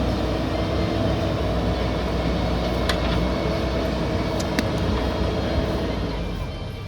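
JCB backhoe loader's diesel engine running steadily under work, with a few sharp metallic clicks in the middle, dying away near the end.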